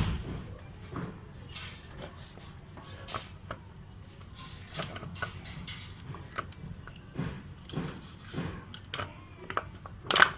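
Scattered clicks and light knocks of scooter front-wheel and brake parts being handled and fitted together by hand, with a sharp knock at the very start.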